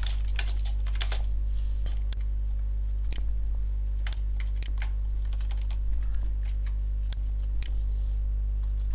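Computer keyboard being typed on, with sparse, irregular key clicks, over a steady low electrical hum.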